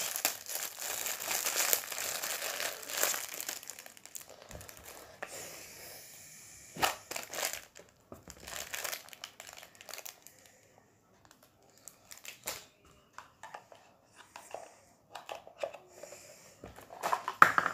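A clear plastic bag crinkling and tearing as it is handled and opened, densest in the first few seconds, then thinning to scattered rustles and small knocks with short quiet gaps.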